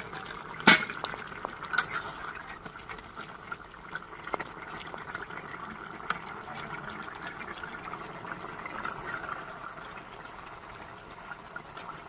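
Curry boiling hard in a black iron kadai, a steady bubbling, with a spatula stirring and knocking against the pan; the sharpest knocks come about a second and two seconds in.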